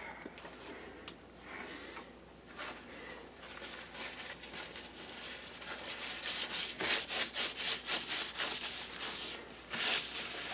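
Quick, repeated rubbing strokes against a hard surface, getting denser and louder from about six seconds in.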